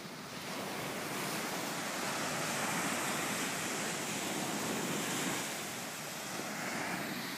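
Sea surf on a sandy beach: small waves breaking and washing up the sand on a calm sea, as a steady rush that swells for a few seconds and then eases.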